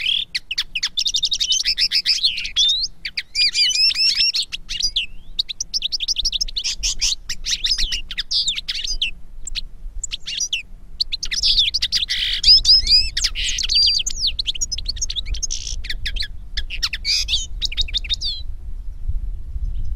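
Finch song: rapid twittering and trilled phrases, broken by short pauses.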